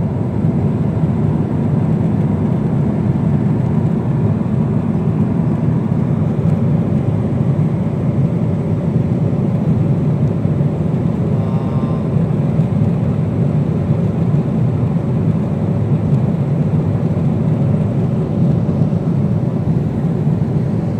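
Jet airliner cabin noise at cruise: a steady low rumble of engines and airflow, heard from inside the cabin.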